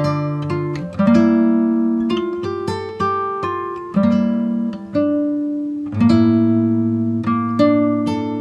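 Background music on a plucked acoustic guitar: single notes and chords struck about once a second, each ringing out and fading.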